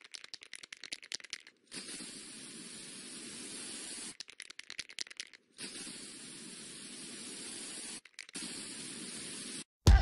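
Aerosol spray-paint can shaken, its mixing ball rattling quickly, then sprayed in a long steady hiss. This happens twice, and the second hiss breaks off briefly near the end. Music cuts in right at the end.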